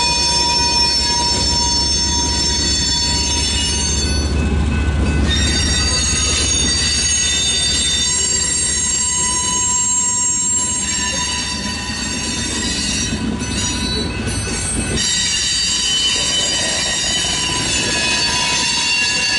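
Freight train of covered hoppers and tank cars rolling slowly past, its wheels squealing in several steady high-pitched tones over a low rumble. The rumble drops away about fifteen seconds in while the squeal goes on.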